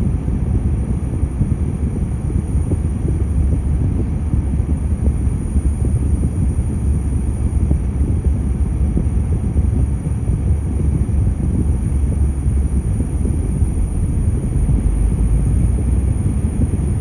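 Steady low rumble of a car driving in traffic, heard from inside the cabin: road and engine noise with no sudden events.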